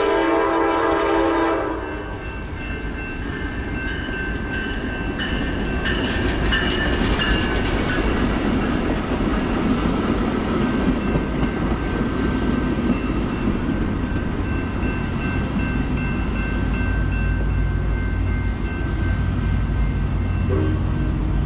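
Passenger train sounding its air horn, a chord of several pitches held for about two seconds, then rumbling past with wheels running over the rails.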